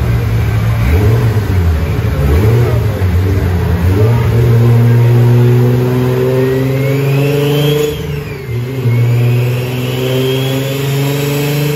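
Single-turbo MKIV Toyota Supra straight-six running in gear on a chassis dyno: uneven at first, then the revs climb steadily with a high whistle rising alongside. About eight seconds in the engine sound briefly dips, then it climbs again.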